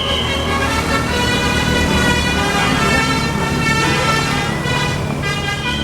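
Bus telolet horn, a multi-tone musical air horn, sounding several steady tones at once and held throughout, over a running bus engine.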